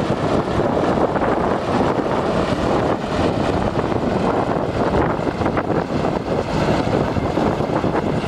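Heavy diesel crawler bulldozer running under load, a loud, steady engine noise.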